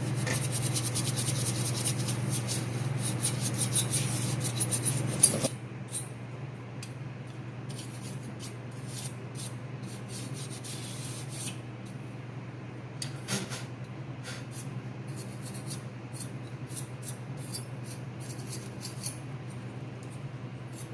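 A brush scrubbing dust off a CPU cooler fan. The bristles rasp in quick, dense strokes for about five seconds, stop abruptly, then go on in sparser, quieter strokes. A steady low hum sounds underneath throughout.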